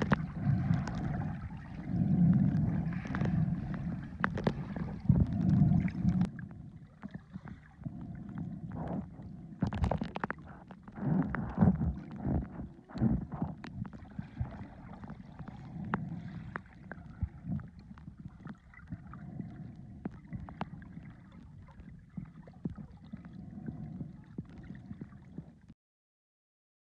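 Muffled underwater sound from a submerged camera: low rumbling and gurgling of water moving around it, with scattered knocks and clicks, louder at the start and again in the middle. It cuts off suddenly to silence near the end.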